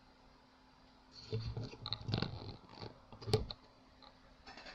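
Gloved hands handling a laptop's open motherboard while seating a RAM module in its slot: a cluster of rustles and clicks starting about a second in, with one sharp click about three seconds in.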